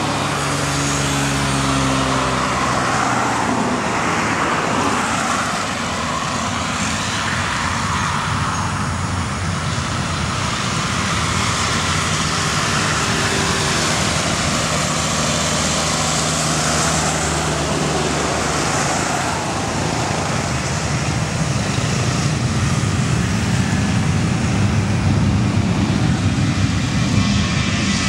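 Boeing 737-900ER's CFM56 jet engines at takeoff thrust as the airliner accelerates down the runway, the noise growing louder in the last few seconds as it draws near. A road truck's engine passes close about halfway through.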